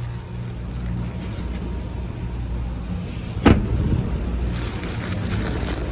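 Steady low rumble of a car, with a single sharp thump about three and a half seconds in.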